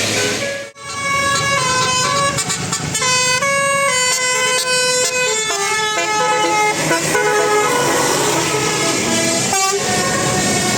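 Bus telolet horn, a multi-tone air horn, playing a melody of quick stepped notes for about nine seconds over steady engine and street noise. It starts about a second in and stops abruptly near the end.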